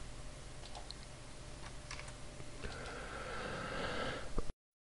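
Sparse computer keyboard and mouse clicks. About two and a half seconds in a steady hiss comes in, and the sound cuts off suddenly just before the end.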